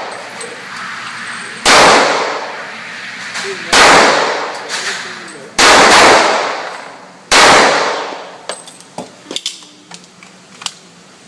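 Four handgun shots, about two seconds apart, each with a long echoing decay, followed by several light metallic clinks.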